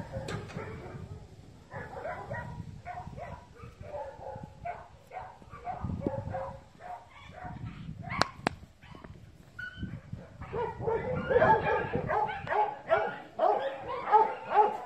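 Dog yipping and whining in short repeated calls, which grow louder and come faster about two-thirds of the way through. Two sharp clicks sound a little past the middle.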